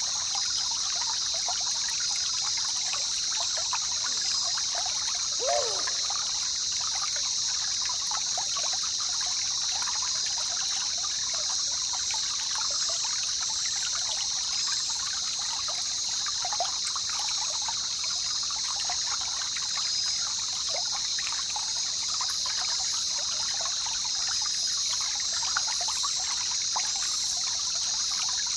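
Jungle river trickling and babbling steadily over a constant high-pitched insect chorus. A single short call glides down in pitch about five and a half seconds in.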